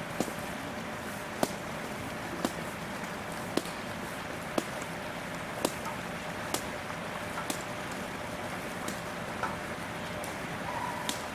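Steady outdoor background noise with sharp, short clicks about once a second, and a brief faint tone near the end.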